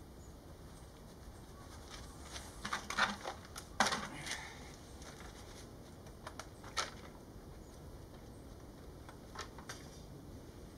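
Quiet handling noises: a cluster of rustles and light clicks and knocks about two to four seconds in, with single clicks near seven seconds and near nine and a half seconds, as a person in work clothes kneels and takes hold of a chainsaw that is not running.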